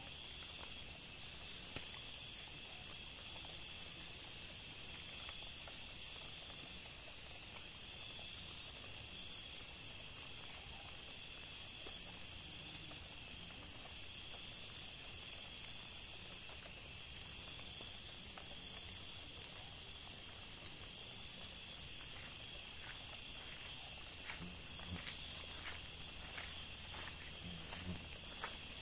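Steady, shrill chorus of night insects such as crickets, holding several high pitches at once. A few faint ticks and soft thuds come in near the end.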